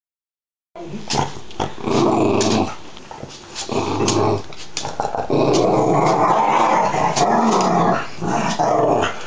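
Cavalier King Charles Spaniel play-growling while tussling, in rough bursts of about a second, the longest lasting nearly three seconds about halfway through, with sharp clicks between them.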